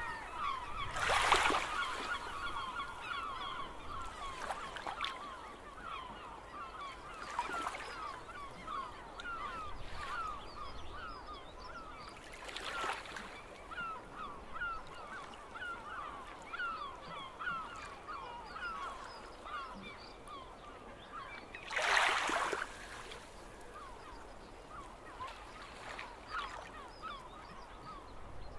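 A flock of gulls calling without pause, many short overlapping cries. Three louder rushes of noise, each about a second long, cut through: near the start, midway, and about three quarters of the way in.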